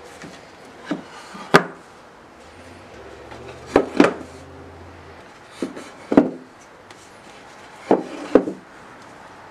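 Thick wooden beams being set down and shifted on a wooden workbench: sharp wooden knocks, about eight of them, mostly in close pairs.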